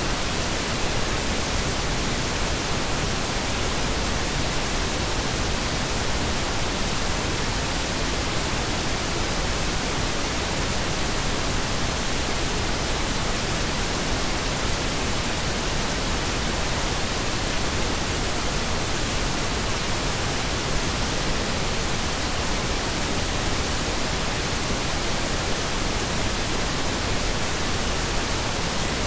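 Synthetic pink noise: a steady, even hiss across the whole range, with no change or events.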